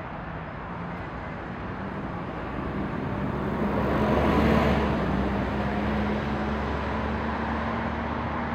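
Vehicle noise: a steady rumble with a low drone underneath, swelling to a peak about halfway through as something passes, then easing.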